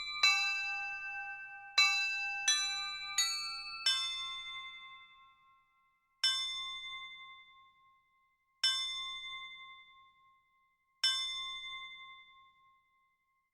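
Mantle clock chiming: a short tune of ringing struck notes about 0.7 s apart ends about four seconds in, then the clock strikes three times on a single lower tone, about two and a half seconds apart, each stroke ringing out and fading before the next.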